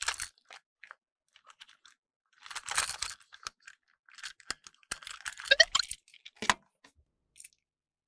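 Hands handling a plastic toy train engine: irregular clicks, rattles and snaps of hard plastic as the body shell is worked off the motorised chassis, in two clusters with quiet gaps between.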